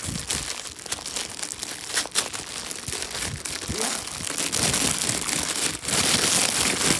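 Crinkly plastic packaging being handled and crumpled by hand, a dense crackle that grows louder in the last couple of seconds.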